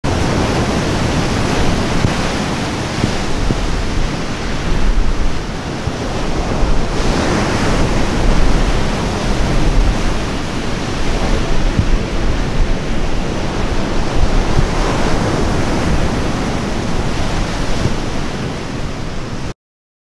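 Gale-driven waves crashing and washing onto a pebble beach, with strong wind rumbling on the microphone. The surf swells louder about seven to ten seconds in as bigger waves break, and the sound cuts off suddenly near the end.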